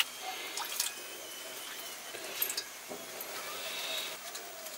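Water dripping and lightly splashing as chopped greens are tipped from a metal bowl into the cooking pot, with a few small clicks and taps.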